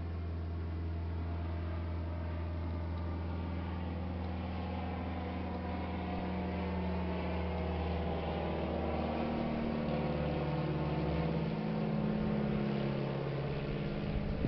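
Low-flying aircraft, a steady deep engine drone made of several held tones; about two-thirds of the way through the pitch of the drone shifts as it passes.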